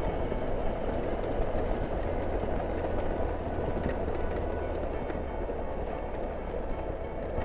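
Motorcycle running at a steady cruise, a constant low engine drone under a rush of wind and road noise.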